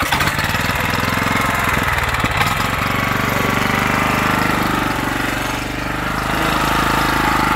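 Small Kawasaki engine on a walk-behind vegetable seeder starting suddenly and then running steadily as the seeder is pushed along.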